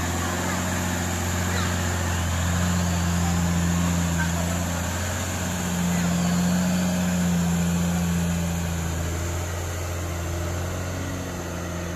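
A 4x4 flatbed truck's engine running under load as the truck drives through a shallow muddy river, a steady low drone whose note swells twice, a few seconds in and again around the middle.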